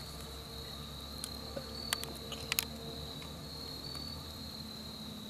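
Crickets trilling in a steady, continuous high-pitched chorus, with a few sharp clicks about two seconds in.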